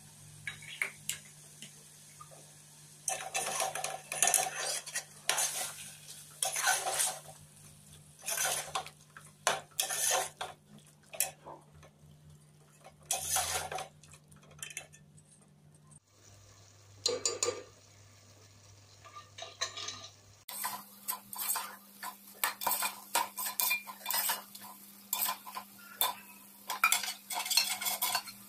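Spoon stirring a thick beef and curd masala, scraping and knocking against the side of a metal cooking pot. The strokes come in repeated bursts with short pauses, starting a few seconds in.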